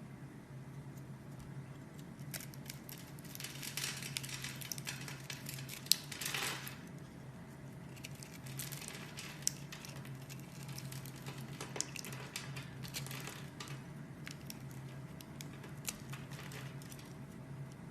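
Soft crackling and squishing from something being pressed or cut by hand, with scattered sharp clicks over a low steady hum.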